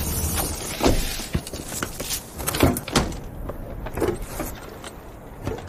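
A car's rear hatch and cargo area being handled: a string of knocks and clunks, some ringing briefly, over a steady hiss that drops away about three seconds in.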